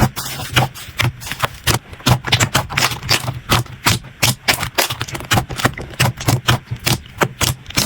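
Slime being handled up close, making rapid, irregular popping and clicking sounds, several a second.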